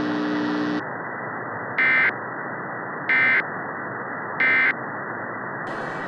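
Emergency Alert System end-of-message data tones: three short bursts, each about a third of a second and about a second and a quarter apart, over a steady hiss. Music starts near the end.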